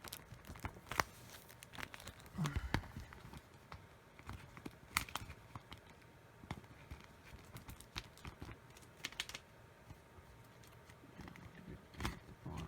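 Cardboard and plastic packaging of a Blu-ray box set being handled: scattered rustling, with light clicks and taps now and then.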